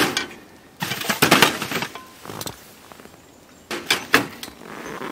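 Several bursts of rustling and scraping as a stuff sack and other gear are handled and packed into a plastic sled on snow, with quieter pauses between.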